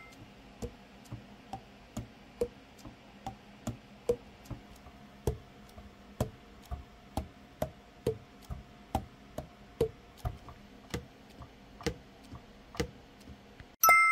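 Selmer Reference 54 alto saxophone keys pressed and released in a steady run, about two clicks a second, each pad closing on its tone hole with a short pitched pop. The pads are closing tightly during a leak test after repair. Near the end comes a bright chime.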